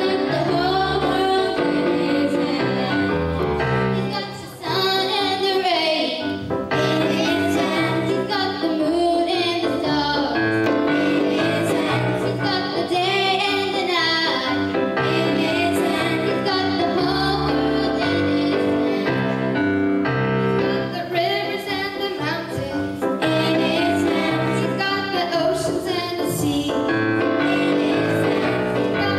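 A group of girls singing a song into microphones over instrumental accompaniment, with a brief pause in the sound about four and a half seconds in.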